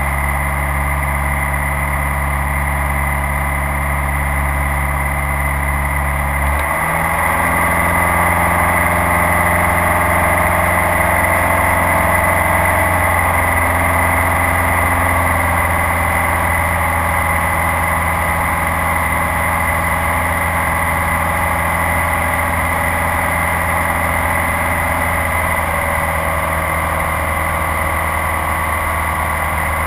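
Light aircraft's piston engine and propeller running steadily, heard inside the cabin. About seven seconds in, the pitch steps up and it gets slightly louder, then the pitch slowly eases back down.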